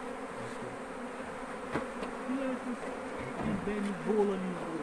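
A swarm of honey bees buzzing steadily around a Langstroth hive box that they have just been shaken into from a tire.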